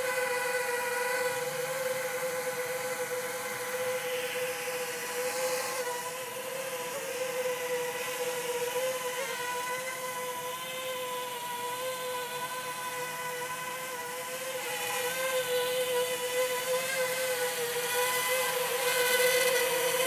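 JME quadcopter drone in flight, its propellers and motors giving a steady buzzing whine with small wobbles in pitch as the motor speeds adjust.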